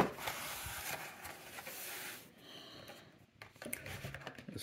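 Carded Hot Wheels cars and their cardboard case being handled: a sharp knock at the start, then rustling and scraping as a blister card is slid out of the box, with a few light clicks near the end.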